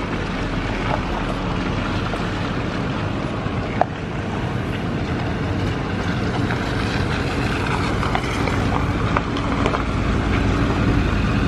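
Pickup truck running at low speed, a steady engine drone with tyre and road rumble, heard from inside the cab.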